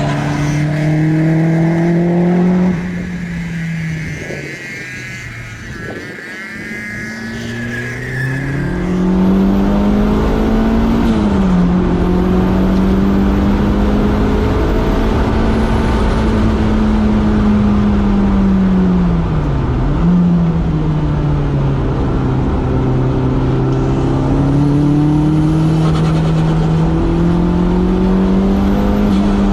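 A Toyota MR2 AW11's swapped-in 3S-GTE turbocharged four-cylinder engine, heard from on board during a hard lap. Its pitch climbs and falls through gear changes. About three seconds in the throttle lifts and the engine note drops away, with a wavering high turbo flutter. Power comes back on around eight seconds in, and the engine pulls steadily, dipping briefly near eleven and twenty seconds.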